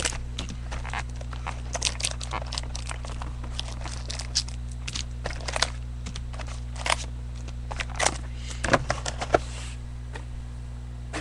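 Handling and opening sealed football card packaging: irregular crackles, clicks and rustles of wrapper and cardboard, over a steady low electrical hum.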